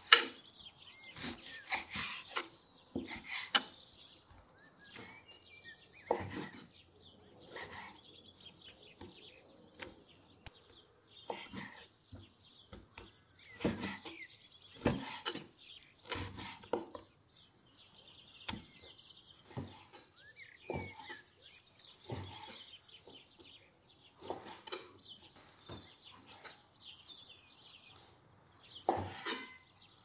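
Chef's knife slicing raw beef on a wooden cutting board, the blade knocking on the board at irregular intervals, with birds chirping faintly in the background.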